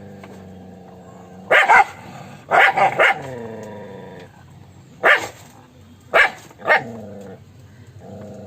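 A dog barking: about eight loud, sharp barks in irregular clusters, some in quick succession, over a quieter steady pitched sound between them.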